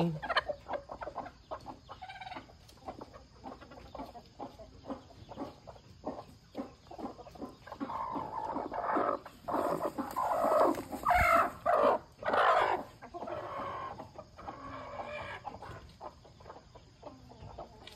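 Broody hen clucking and squawking in protest as she is lifted off her nest, with rustling of the wood-shavings bedding throughout. The loudest, most agitated calls come a little past the middle.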